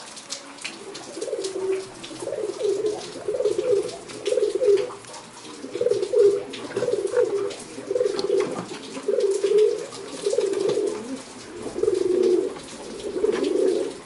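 Domestic pigeons cooing over and over, a low throaty coo about once a second, with a few clicks.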